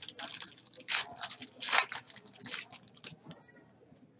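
Foil trading-card pack wrapper being torn open and crumpled in the hands: a run of sharp crinkling tears, loudest about one and close to two seconds in, dying down to a few faint rustles near the end.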